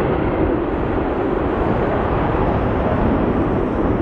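F-16 Fighting Falcon jet in afterburner, climbing away just after takeoff: loud, steady jet noise with no letup.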